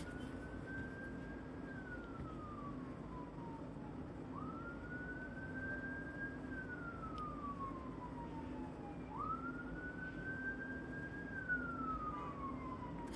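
Emergency-vehicle siren wailing, its pitch climbing quickly, holding, then sliding slowly down, about three times, over a steady low hum.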